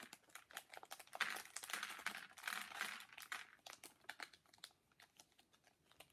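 Thin clear plastic bag crinkling and rustling in quick bursts as hands open it, with light clicks of the small plastic minifigure parts inside; busiest in the middle, easing off near the end.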